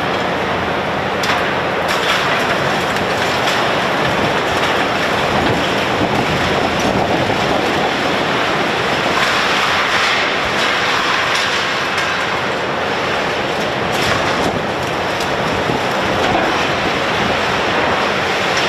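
Hydraulic demolition excavator running under load as its grapple tears apart concrete and rebar: a dense, steady din of engine and grinding, clattering debris, with a few sharper knocks.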